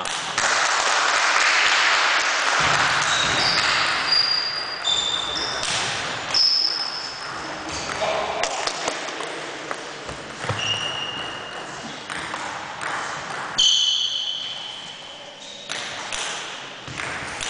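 Table tennis rally: a celluloid ball clicks repeatedly off bats and the table, with short high squeaks from sports shoes on the wooden gym floor.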